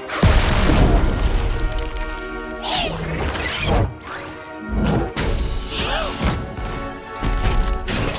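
Cartoon score with slapstick sound effects: a loud crash right at the start, then music with several quick sliding-pitch effects.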